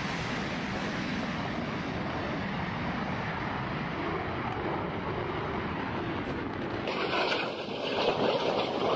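Fighter jet engine noise: a steady rushing roar that turns louder and rougher about seven seconds in.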